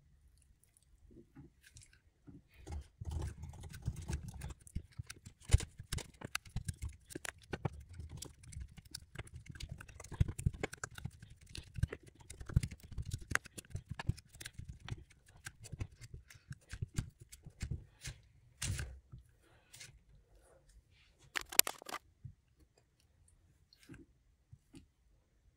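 A metal spoon pressing, folding and smearing soft modelling clay on a hard surface: sticky squishes and crackles with many small clicks and soft thuds, busy through the first two-thirds, then sparser with a couple of sharper clicks.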